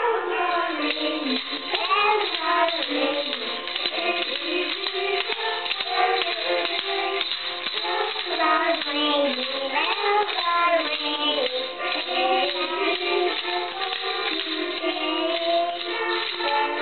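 Young children singing a song, with a small hand-held toy tambourine jingling along.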